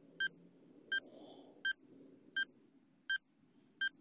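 Countdown timer beeping: six short, high-pitched beeps, evenly spaced about 0.7 seconds apart.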